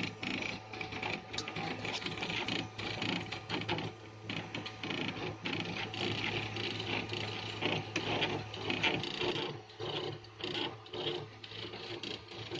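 Home-built 3D printer made from salvaged inkjet-printer and scanner parts, running a print: its stepper motors buzz and whir in quick, irregular bursts as the print head and bed move, over a steady low hum.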